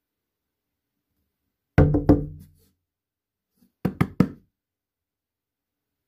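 Knocking: three quick, hard knocks, then about two seconds later three more, each with a short hollow ring.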